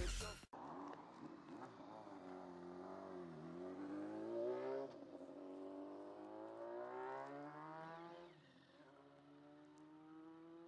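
Dance music cuts off about half a second in. A motorcycle engine follows, its pitch dipping and rising, then climbing slowly as it revs, before fading about eight seconds in.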